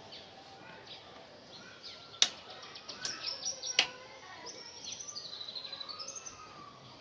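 Two sharp metal clicks about a second and a half apart, with a quick run of light ticks between them, as hands work at a bicycle's rear axle. A bird sings in the background in the second half.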